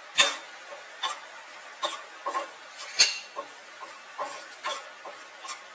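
Wooden spatula knocking and scraping against a nonstick kadhai while stirring a thick onion and spice masala, in irregular strokes about once or twice a second. The loudest knocks come just after the start and about three seconds in.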